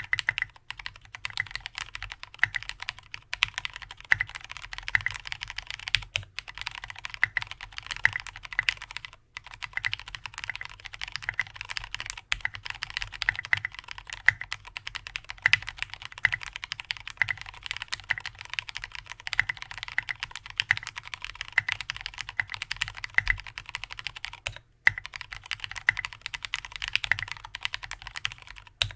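Continuous fast typing on an AR87 mechanical keyboard with an aluminium plate, lubed Cherry MX Black linear switches and tall SA-profile keycaps, giving dense keystroke clacks with a couple of brief pauses, about nine and twenty-five seconds in.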